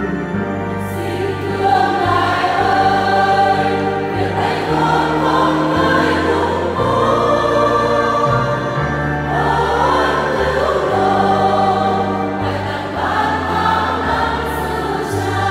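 Parish church choir singing a hymn in parts over an accompaniment of sustained low notes. The voices come in strongly about a second and a half in.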